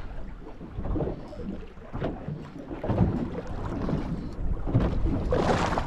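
Wind buffeting the microphone and choppy water lapping against a small boat's hull, an uneven low rumble with a louder rush near the end.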